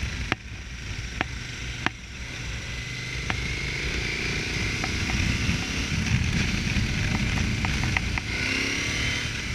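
KTM 1050 Adventure's V-twin engine with an Akrapovic exhaust running on the move, its pitch falling and then rising again with the throttle, over wind hiss and a few sharp clicks.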